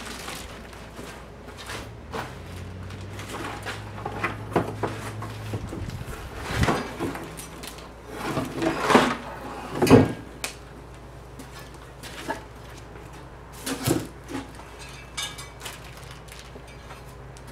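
Cardboard box and plastic packing being handled and unpacked: rustling and crinkling with scattered knocks, and a couple of louder thumps about nine and ten seconds in.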